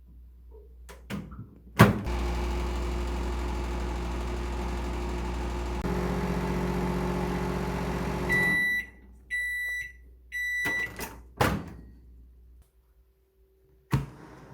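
A clunk, then a microwave oven running with a steady hum. The hum stops and the oven beeps three times, about a second apart, marking the end of the heating cycle, followed by a couple of sharp clunks and a knock.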